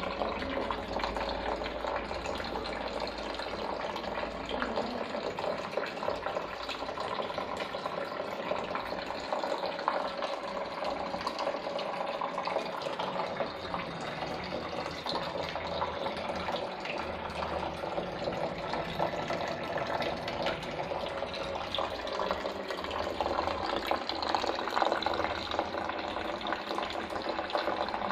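Water running and splashing steadily in a small homemade cement fountain, unbroken throughout.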